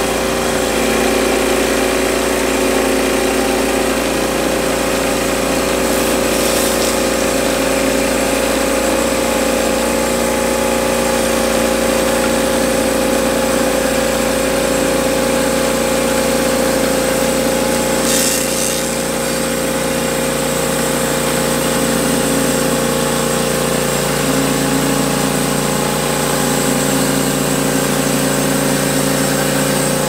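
Norwood LumberPro HD36 portable bandsaw mill running steadily, its engine under load as the band blade cuts along a large gum log.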